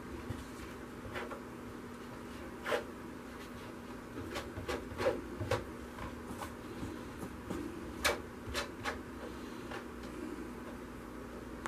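Light handling noises as white base paint is spread over a stretched canvas with a gloved hand and a plastic spreader: a scattering of soft taps and knocks with some rubbing, over a steady low hum.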